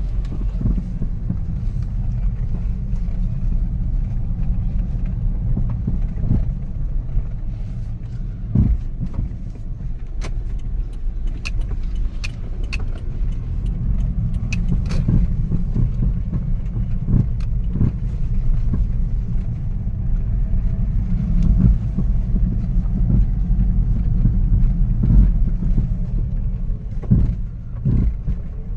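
Car engine running with a steady low rumble, with scattered sharp knocks and clunks throughout, the sign of bad motor mounts.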